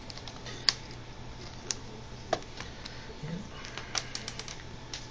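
Scattered light clicks and taps of a screwdriver and small screws being worked into a laptop's screen bracket, irregular with a quick run of clicks near the end, over a steady low hum.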